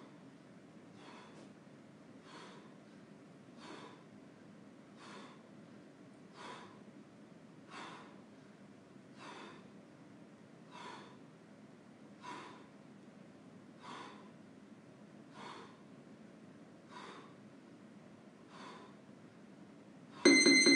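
A man breathing out sharply in time with his push-ups, one short breath about every second and a half. Near the end a loud electronic beep cuts in.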